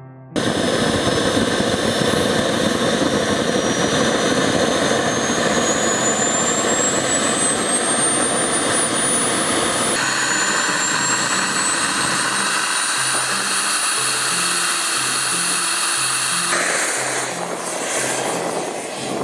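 Model jet's Frank turbine running with a high whine that slowly rises in pitch, heard in two stretches, over background music. Near the end the rush grows broader and the whine dips and rises again as the jet taxis.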